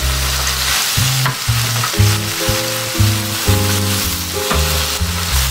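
Firm tofu blocks sizzling as they fry in oil in a nonstick frying pan, with a few clicks of a spatula against the pan as they are turned. Background jazz music with low bass notes plays underneath.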